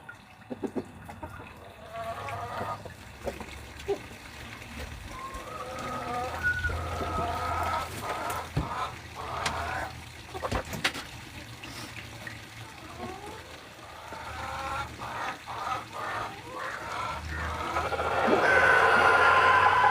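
Backyard chickens clucking and calling in short pitched notes, with scattered knocks and clicks from work around the coop. A louder steady whine comes in near the end.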